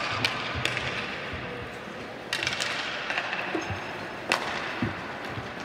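Sharp clacks of hockey sticks hitting the puck, the loudest about four seconds in, over the hiss of skate blades scraping the ice, echoing in the arena.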